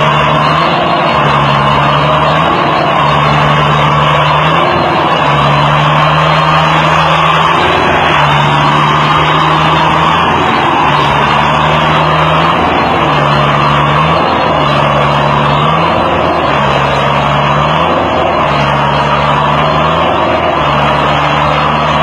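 Farm tractor engine revving up, holding and easing off again and again, about once every second and a half, as it labours with its wheels stuck deep in mud.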